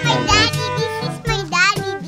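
Background music with a steady, stepped bass line.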